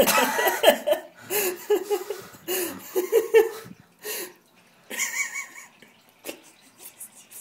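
A man's voice in short, unclear bursts, untranscribed, with handling rustle from the plastic container, over the first half; mostly quiet after.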